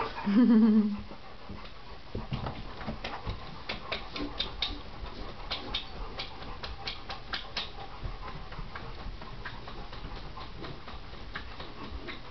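A dog whines briefly just after the start, then a long run of quick, sharp slapping clicks made by the dog.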